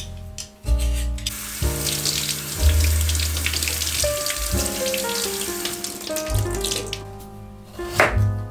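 Kitchen tap running water into the sink as a potato is rinsed under it, a steady hiss from about a second in until shortly before the end, over background music with a bass line. Near the end, a single sharp knife cut on the cutting board.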